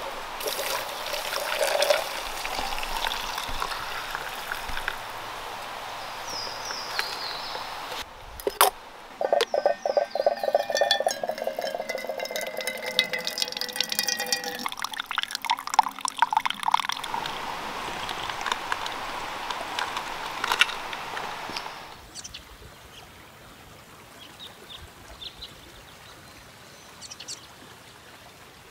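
Hot coffee poured from a blue enamel camp coffee pot into a stainless steel cup, splashing and gurgling, its pitch rising as the cup fills. The pouring stops about two-thirds of the way through, leaving a quieter background with a few faint short high chirps.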